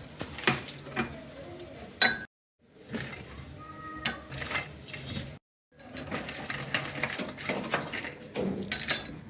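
Clinks, taps and clatter of kitchen utensils and dishes being handled, in short pieces broken by two brief dead silences about two and five seconds in.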